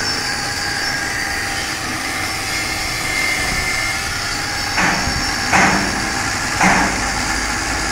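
Steady running noise of workshop machinery, with three short, harsh bursts of metalwork in the second half.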